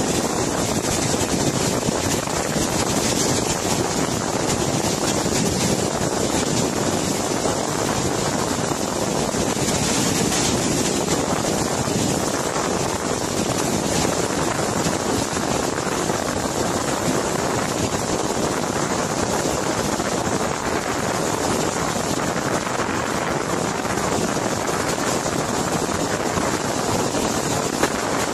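Muddy flash floodwater rushing down a wide riverbed: a loud, steady, unbroken rush, with wind on the microphone.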